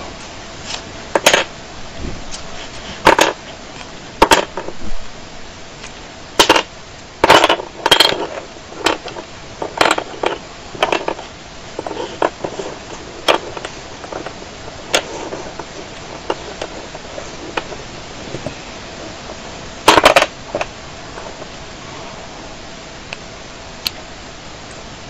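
Wooden sticks of a Kongming lock burr puzzle clacking against each other and knocked down onto a wooden table as the puzzle is handled piece by piece: irregular sharp clacks, a tight cluster of them about twenty seconds in, over a steady hiss.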